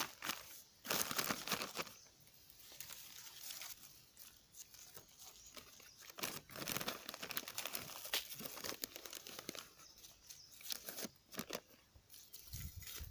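Black plastic nursery bags crinkling and soil crunching as hands press potting soil around cuttings, in irregular spurts of rustles and small clicks.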